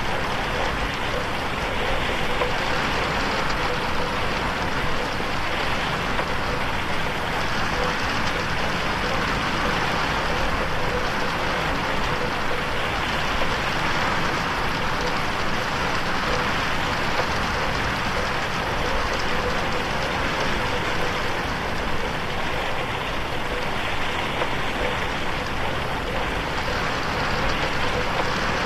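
Steady heavy rain on a window, a dense even hiss with no let-up.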